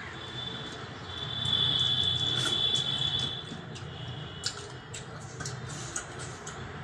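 Eating by hand: small wet clicks of chewing and of fingers picking through fish bones in gravy on a steel plate. A steady high whistling tone of unclear source sounds over them for about the first four seconds and is the loudest sound.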